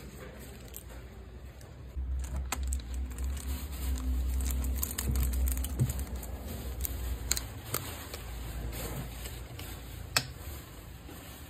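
Plastic screw cap of a bottle being twisted open: a few sharp clicks and crackles over a low rumble of handling noise.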